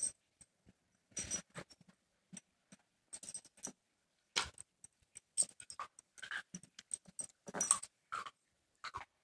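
Male dog whining briefly and repeatedly while moving restlessly about on a bed, with light metallic jingling and bedding rustling as he shifts: the agitation of a male kept apart from a female in heat.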